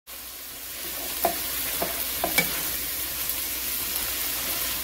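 Crumbled pork chorizo sizzling steadily as it fries in a skillet, stirred with a wooden spoon that knocks and scrapes against the pan a few times.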